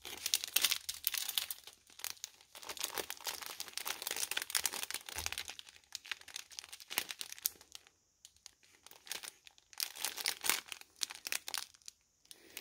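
Small clear plastic bags of diamond-painting drills crinkling as they are handled and turned, in irregular crackly spurts with short pauses.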